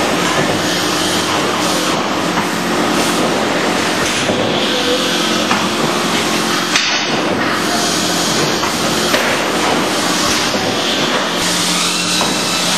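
Automatic stretch-film vacuum packing machine running: a steady mechanical hum under dense, continuous clattering and knocking, with a brief break about seven seconds in.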